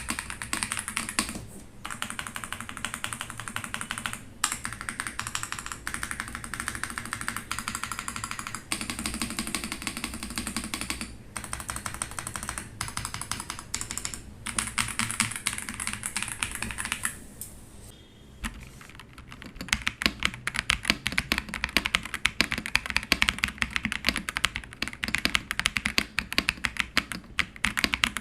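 Continuous typing on an Ajazz AK820 mechanical keyboard with Green Plum switches, a rapid patter of key clicks. The typing pauses briefly about two-thirds of the way through, then resumes louder.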